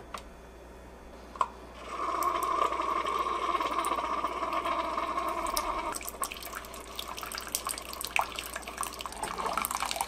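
Keurig K-Elite single-serve coffee maker brewing: a click, then the machine hums steadily for about four seconds, then coffee pours and splashes into a glass measuring cup with small drips and spatters.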